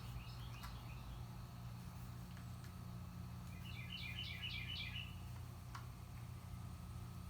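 A small songbird singing a short phrase of quick, repeated high chirps about four seconds in, with fainter chirps at the start, over a low steady background hum.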